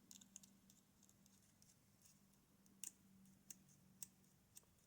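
Near silence with a few faint, sharp clicks of small metal lock pins being handled, spread irregularly about a second apart, over a faint steady hum.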